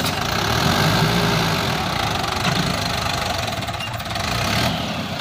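Swaraj 843 XM tractor's three-cylinder diesel engine running under load as it pulls a loaded trailer through soft mud, easing off slightly about four seconds in.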